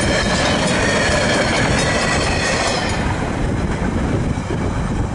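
Freight train of empty log wagons rolling over a level crossing, wheels clattering on the rails with steady high-pitched tones above the rumble. About three seconds in, as the last wagon clears, the high tones fade and a lower rumble remains.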